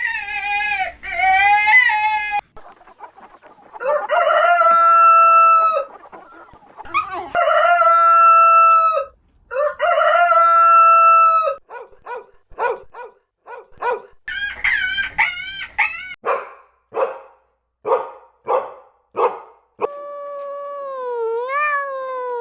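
Rooster crowing three times, each crow a long held call of about two seconds, followed by a run of short clucks. Other gliding animal calls open and close the stretch.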